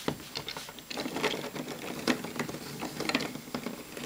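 Hand-cranked 3D-printed plastic differential, its bevel gears clicking and rattling irregularly as the crank is turned.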